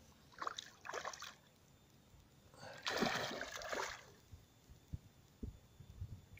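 A fish splashing at the water surface beside a kayak: a couple of short splashes, then a bigger, louder splash about three seconds in as it thrashes and dives. A few low knocks follow near the end.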